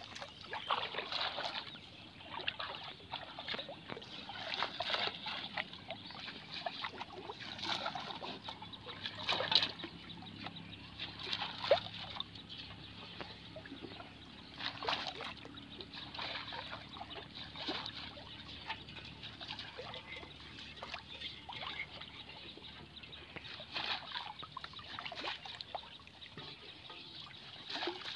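Water trickling and splashing off a mesh fish trap net as it is lifted and shaken in shallow water, with irregular small splashes and drips and a couple of louder splashes around the middle.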